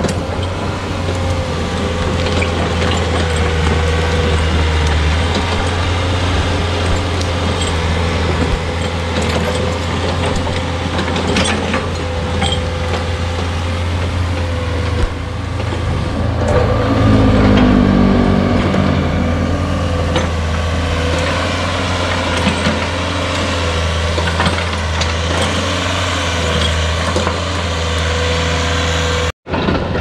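PC40 mini excavator's diesel engine running steadily as it works, with a few knocks. About halfway through, its note wavers and grows louder for a few seconds. The sound cuts out for an instant near the end.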